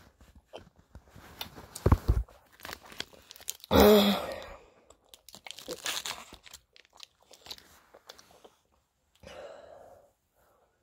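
Chewing and crunching of sour gum close to a phone microphone, with irregular knocks and crackles. A short, loud burst of noise comes about four seconds in.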